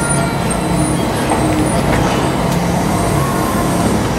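Steady low mechanical rumble and hum of a locomotive turntable turning, carrying the C62 2 steam locomotive around.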